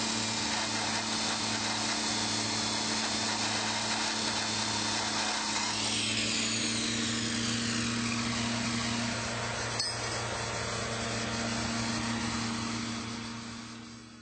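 A 4.2-horsepower abrasive metal chop saw grinding through 4-inch Schedule 40 black iron pipe: a steady motor hum under a harsh grinding hiss, cutting without hesitation. A falling whine sets in about six seconds in, and the sound fades out at the end.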